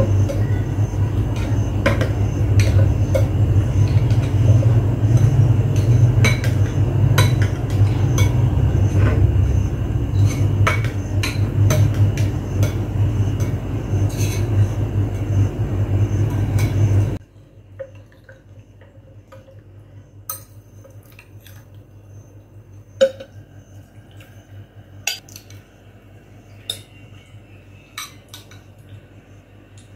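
A knife clicking and scraping against a glass bowl as set agar jelly is cut into pieces, over a loud steady low hum. A little past halfway the hum cuts off abruptly, leaving only scattered light clinks of glass and china as the jelly is tipped out onto a plate.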